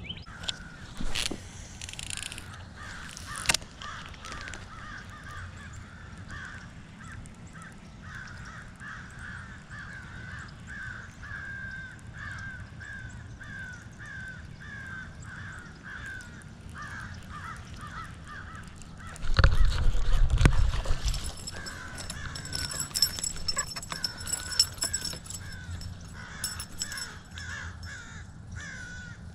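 A bird calls over and over in short calls, nearly two a second. About two-thirds of the way through, a loud low rumble breaks in for a couple of seconds.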